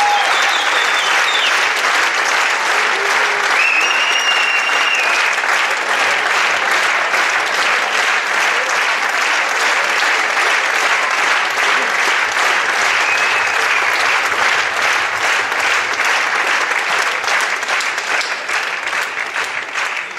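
Audience applauding steadily, with a few short high-pitched cheers over the clapping in the first few seconds; the clapping thins out near the end.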